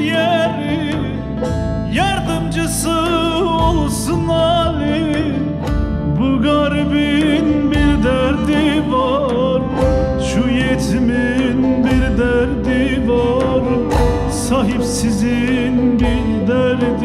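Turkish folk song played live on a bağlama (saz), strummed and plucked, over keyboard and hand-drum beats, with a man's voice singing an ornamented, wavering melody.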